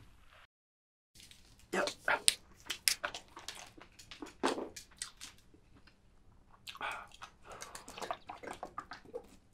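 Close-miked mouth sounds of someone eating spicy chicken: quick wet smacks, sucking and chewing clicks at an irregular pace, starting about a second in, with a few longer slurping sounds.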